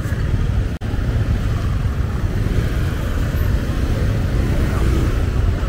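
Outdoor street-market noise dominated by a steady, heavy low rumble, with the sound cutting out for an instant just under a second in.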